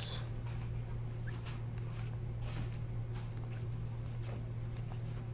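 Faint rustling and sliding of glossy trading cards being shuffled through by hand, over a steady low hum.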